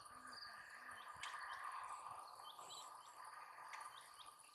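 Faint outdoor ambience: a steady soft hiss with a few short, soft chirps in pairs from small birds, heard three or four times.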